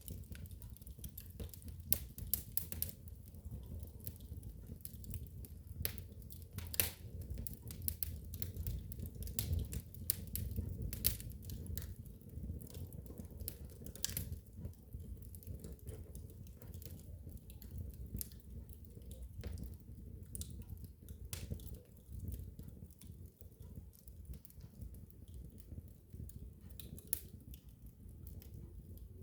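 Wood fire burning in a fireplace: a low steady rumble of flames with irregular sharp crackles and pops, the louder snaps scattered throughout.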